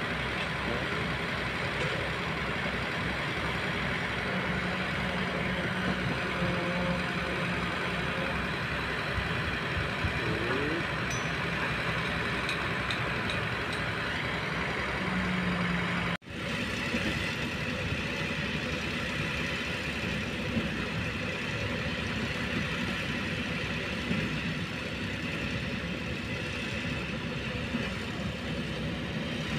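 Diesel engines of heavy construction machinery, a hydraulic excavator among them, running steadily, with a low engine note that swells now and then. About halfway through, the sound breaks off abruptly and resumes as a similar steady diesel engine hum.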